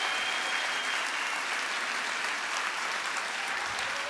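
Audience applauding: a steady wash of many hands clapping that slowly dies down.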